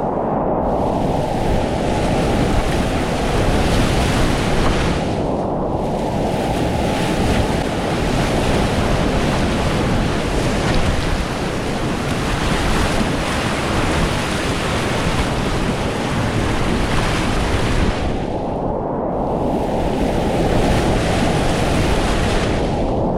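Continuous loud roar of big, fast whitewater rapids on the North Fork Payette River at about 2,440 cfs, heard close up from the water. It turns muffled for a moment a few times.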